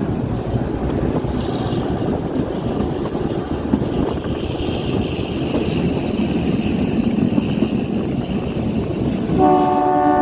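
Kalka–Shimla narrow-gauge toy train running with a steady rumble, and a faint high squeal for a few seconds in the middle. Near the end its horn sounds once, a multi-tone blast of about a second.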